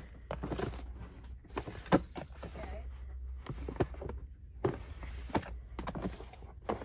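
Plastic storage drawers being slid open and shut, with a string of sharp plastic clacks and knocks about once a second, the loudest at the start and about two seconds in.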